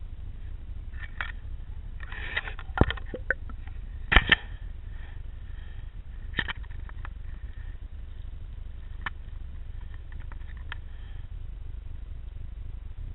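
Underwater audio from a submerged camera: a steady low rumble with scattered sharp clicks and knocks, the loudest clusters about three and four seconds in.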